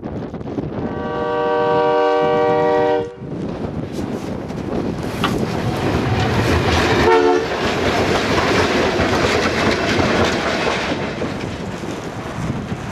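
EMD FP9 diesel locomotives passing: a long horn blast that cuts off sharply about three seconds in. It is followed by the loud, steady rumble of the engines and wheels going by, with a short second horn note about seven seconds in.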